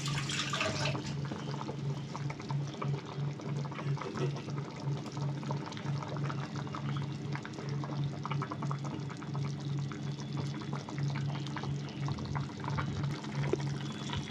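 Fish curry with taro and potato boiling hard in a pan: a steady bubbling and popping, over a low pulsing hum.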